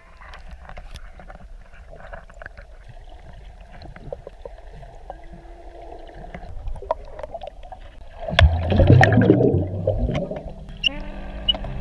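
Underwater sound of water moving around the camera, with scattered small clicks, and a louder gurgling rush for about a second and a half starting about eight and a half seconds in.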